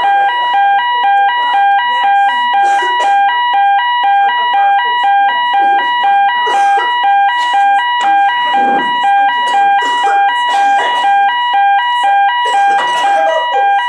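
Electronic alarm tone beeping loudly and steadily, about two beeps a second in an alternating two-tone pattern, with a murmur of audience noise underneath.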